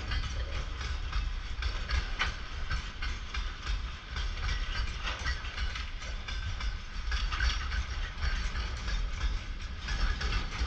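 Freight train of covered boxcars rolling past, its wheels knocking and clattering over the rail joints over a steady low rumble.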